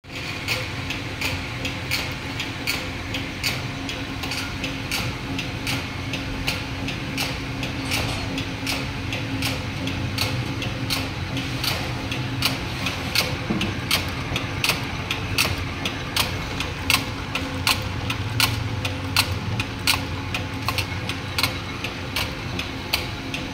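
Mechanical power press running continuously on a wire straightening and cut-to-length line, giving a sharp metallic clack about twice a second as each length of wire is cut, over the steady hum of the machinery.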